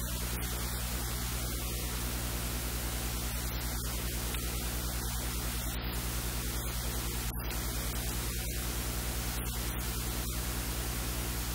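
Steady hiss with a low electrical hum underneath: the recording's own noise floor, with no distinct sound from the kitchen.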